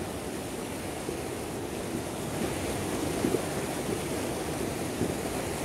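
Steady rush of a fast mountain river tumbling over rapids and rocks.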